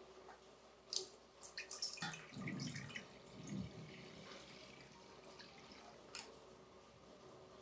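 Liquid poured from a glass measuring jug into an empty stainless steel pot, splashing onto the metal bottom for about two seconds, then thinning to a trickle and drips.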